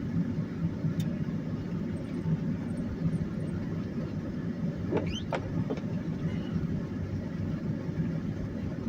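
Steady low rumble of a car driving, heard from inside the cabin. Just past five seconds there are a few short, rising high-pitched squeaks.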